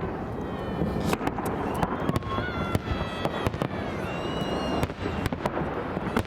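Victory Day fireworks salute going off: a rapid, irregular series of sharp bangs and cracks over a continuous rumble of bursts.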